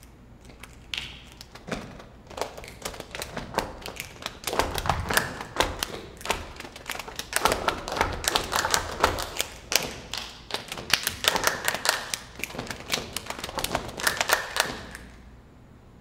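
A dense, irregular run of sharp taps and clicks with a few dull thumps, played by a chamber ensemble. It starts about half a second in, swells and thins out in waves, and stops abruptly about a second before the end.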